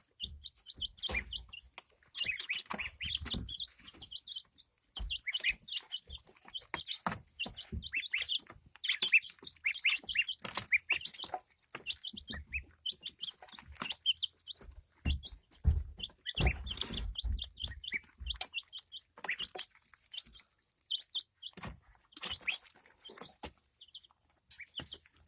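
Chickens and a baby duck calling: a steady stream of short, high-pitched peeps and chirps with some clucking, mixed with scattered soft thumps.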